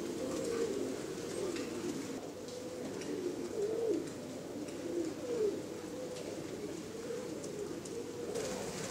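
Many domestic pigeons cooing at once, their low rising-and-falling coos overlapping into a continuous chorus.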